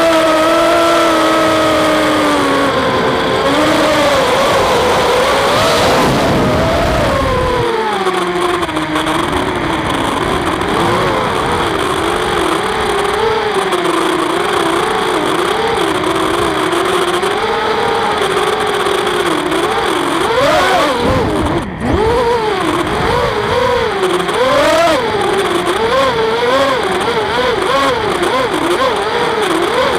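FPV quadcopter's brushless motors and propellers whining as the throttle changes: the pitch falls over the first several seconds, then wobbles up and down rapidly through the rest of the flight, with a brief drop about two-thirds of the way through.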